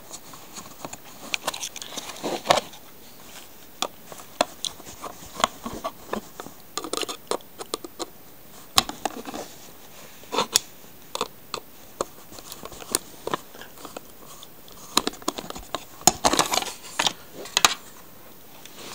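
Hands handling a model locomotive's hard plastic display base and packaging: irregular clicks, taps and short scrapes, with busier clusters about a third of the way in and again near the end.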